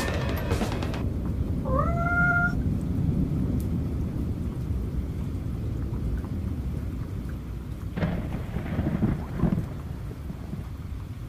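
Thunderstorm ambience: a low, steady thunder rumble under rain. About two seconds in comes one short call that rises in pitch and then holds, like a cat's meow. About eight seconds in a harsher peal of thunder sounds.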